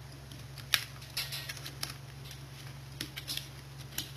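A run of irregular small plastic clicks and taps from handling a Nook Tablet while its microSD card is being swapped. The loudest click comes a little under a second in.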